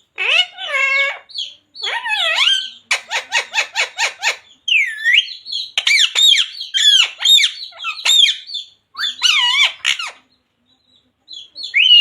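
Ring-necked parakeet calling: a string of squawks and chattering, gliding calls, with a rapid run of clicks about three seconds in and a brief pause near the end.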